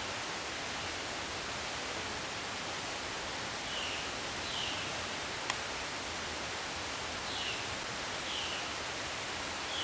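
Steady hiss of rainforest ambience, with short falling chirps from a small animal coming in pairs about a second apart from about four seconds in, and a single sharp click around the middle.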